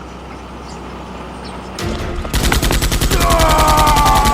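Rapid automatic gunfire, about a dozen shots a second, starting about two seconds in after a low steady hum.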